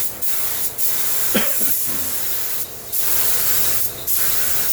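Compressed-air spray gun hissing as it sprays primer, in long passes broken by short pauses of the trigger. About a second and a half in, a brief sliding tone sounds over the hiss.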